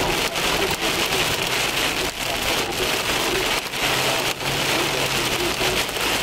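Hail and heavy rain pelting a car's roof and windshield, heard from inside the cabin: a dense steady hiss broken by frequent sharp knocks of hailstones striking.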